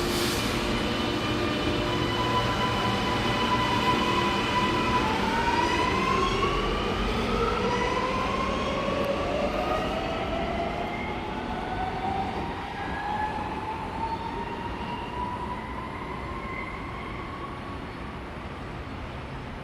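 Alstom Metropolis metro train pulling away from the platform, its traction motors giving several rising whines as it speeds up. The sound slowly fades as the train leaves.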